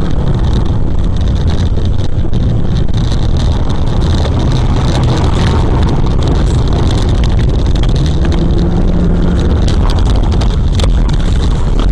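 Wind rushing and buffeting into a moving car's cabin through an open window, over the car's engine and road noise; loud and steady throughout.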